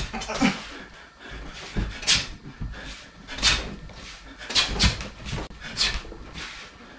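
A man's sharp, forceful breaths while shadowboxing: about six short huffs at irregular intervals, one with each burst of punches.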